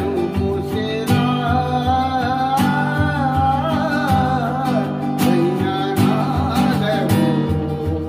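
Acoustic guitar strummed in steady downstrokes in the 16-beat Teen Taal pattern, with a man singing a wavering classical-style melody over it.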